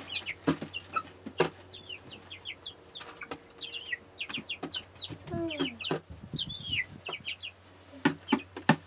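Young chickens pecking feed pellets off the tops of plastic buckets, making sharp irregular taps, mixed with their short high peeps and chirps throughout. One louder, falling squawk comes about five seconds in.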